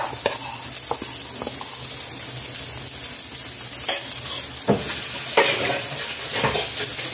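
Oil sizzling steadily as minced-fish-stuffed tofu pan-fries, with a few short sharp clicks scattered through.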